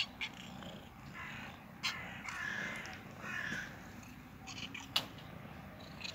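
Domestic cat meowing three times in short calls, with a few sharp clicks, the loudest about five seconds in.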